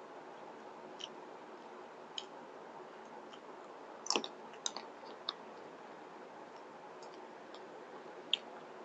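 Soft eating sounds close to the microphone: scattered wet mouth clicks and smacks while chewing, about half a dozen, with a louder cluster about four seconds in.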